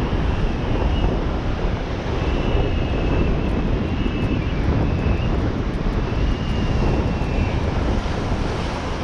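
Steady roar of wind buffeting the microphone mixed with surf breaking below, with faint high whistling tones coming and going over it.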